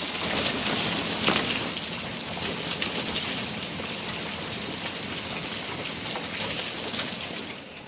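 Heavy rain falling steadily, with many sharp drop hits in the constant rush; it drops away at the very end.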